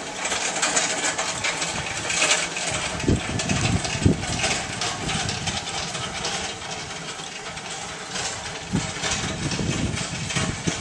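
Wheeled trolleys clattering and rattling over paving in a continuous stream of small knocks, with a couple of louder bangs about four seconds in.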